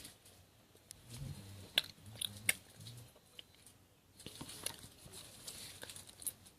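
Faint sticky clicks and small squelches of slime being pulled and picked at by hand, scattered and irregular, with a faint low murmur early on.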